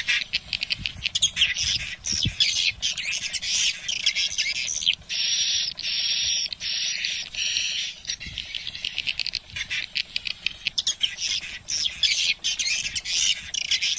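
Swiftlet calls, a lure recording for swiftlet houses: a dense, fast twittering of high, buzzy chirps that goes on without a break, with a few longer buzzy notes of about a second each in the middle.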